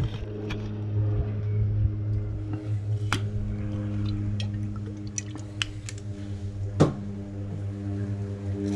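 Olive oil poured from a bottle over whole raw fish, with wet squelching as hands handle the fish, and a few sharp ticks. A steady low hum runs underneath.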